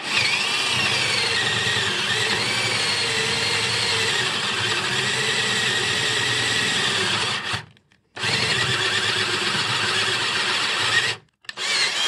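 Cordless drill turning a 23 mm twist bit through plywood, its motor running with a steady whine under load. It stops briefly about seven and a half seconds in and again about eleven seconds in, restarting each time.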